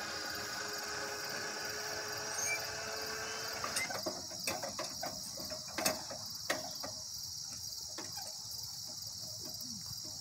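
Railroad crossing gate mechanism running as the gate arm lifts, cutting off suddenly about four seconds in, followed by a few sharp clicks and knocks. Crickets trill steadily throughout.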